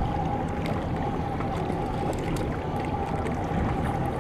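Outboard motors of a center console boat running at idle, a steady drone with a held tone, under an even wash of water and wind noise.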